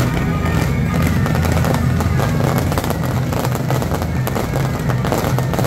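Fireworks crackling and popping thickly and without pause, over loud music.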